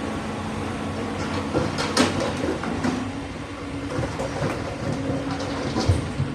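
Heavy earthmoving machinery with a diesel engine running steadily, overlaid by metallic clanks and knocks: a sharp one about two seconds in and the loudest near the end.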